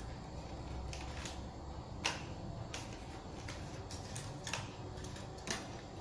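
Irregular light plastic clicks and taps from a folding camera drone being handled and turned over, with two louder clacks, one about two seconds in and one near the end.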